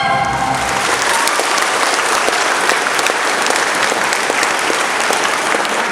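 Concert audience applauding steadily right after a choir's final note breaks off.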